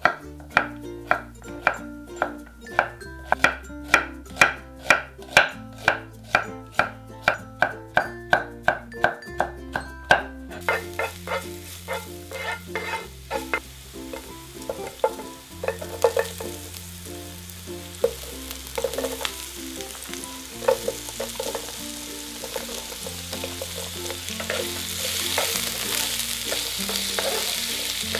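A knife slicing zucchini on a wooden cutting board, in regular strikes about three a second for some ten seconds. Then oil sizzles in a frying pan with occasional stirring scrapes, and the sizzle grows louder in the last few seconds as zucchini and onion are fried. Light background music plays throughout.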